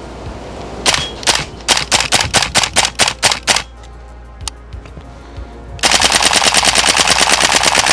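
Tokyo Marui AKM gas blowback airsoft rifle firing: a quick string of about a dozen single shots, a pause of about two seconds, then a long full-auto burst of roughly three seconds, each shot a sharp crack of the cycling bolt.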